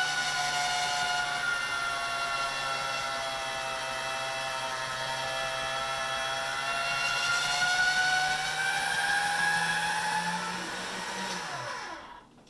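Electric pasta roller motor whining steadily while a sheet of egg-noodle dough is fed through its rollers. The pitch sags in the middle and climbs back, then falls away as the motor winds down and stops near the end.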